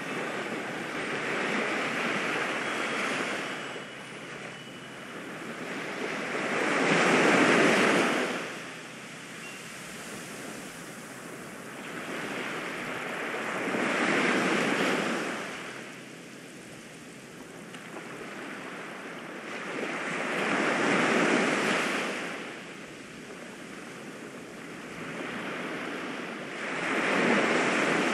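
Ocean surf: waves rolling in and washing back in slow, even swells, about one every six or seven seconds.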